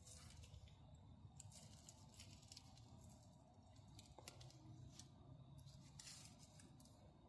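Near silence, with faint light ticks and scrapes of small metal parts being handled: feeler gauge blades being picked out and tried in a piston ring's end gap. One slightly sharper tick comes about four seconds in.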